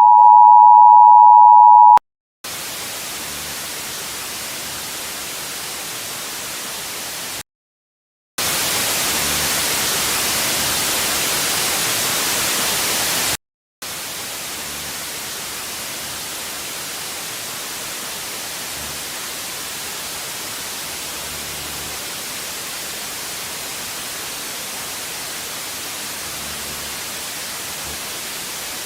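Emergency Alert System two-tone attention signal ending about two seconds in, then steady static hiss. The hiss cuts out twice for under a second and is louder between about 8 and 13 seconds in.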